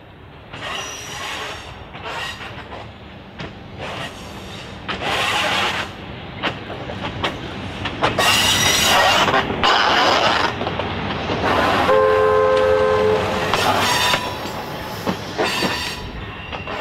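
Tulloch-built DRC diesel railcar passing close by, its wheels clicking over the rail joints, getting louder as it approaches and loudest as it goes past. About twelve seconds in it gives a short two-note horn blast.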